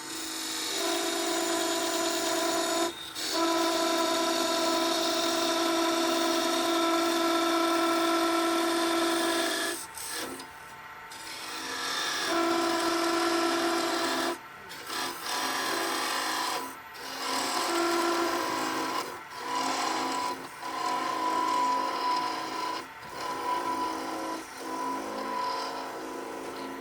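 Wood being shaped by a power tool: a steady motor tone under a rasping cutting noise. It stops and restarts several times, with brief breaks that come more often in the second half.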